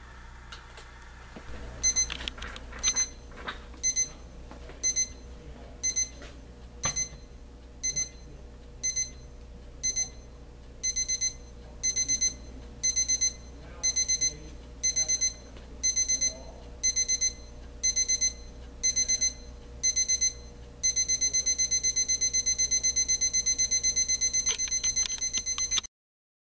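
Equity 30221 weather forecast alarm clock's electronic alarm beeping: high single beeps about once a second that lengthen into short bursts, then a rapid non-stop beeping near the end that cuts off suddenly. A few light clicks from the clock being handled come early on and just before it stops.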